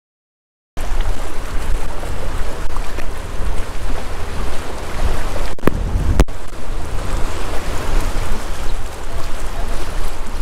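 Silence for the first second, then wind buffeting the microphone over choppy bay water slapping against jetty rocks: a steady, loud rushing with a heavy low rumble. Two sharp knocks about six seconds in.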